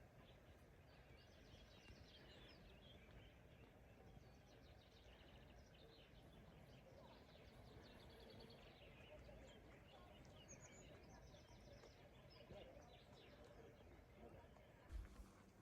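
Faint birdsong: small birds chirping and trilling several times over a quiet outdoor background, with a single soft thump near the end.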